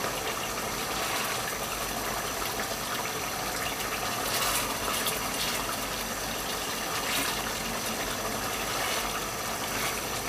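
Hilsa roe cooking in a spiced, oily masala in a pot over medium-low heat, with a steady sizzling and simmering. A few soft scrapes of a wooden spatula come through as the roe is stirred gently.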